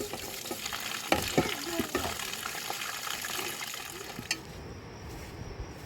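Food sizzling as it fries in a pan, with several sharp clicks of a utensil stirring against the pan. The sizzle cuts off abruptly with a click a little over four seconds in.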